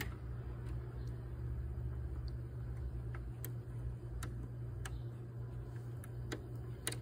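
Steady low electric hum from the starter solenoid area of a 2005 BMW X3's M54 engine while the starter relay terminals 30 and 87 are jumped, with no cranking: power reaches the solenoid but the starter does not turn the engine over. Faint scattered clicks come now and then.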